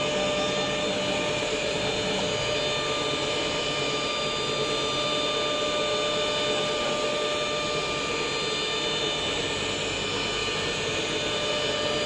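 AccTek CNC router with an oscillating knife cutting, its vacuum hold-down table switched on: a steady machine drone with several constant whining tones.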